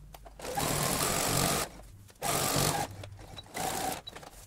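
Brother CS6000i computerized sewing machine stitching a straight seam through layered cotton fabric, running in three short bursts with brief stops between them.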